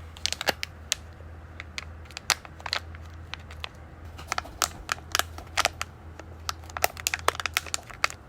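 Irregular light clicks and crinkles, like small objects or plastic packaging being handled, over a steady low hum.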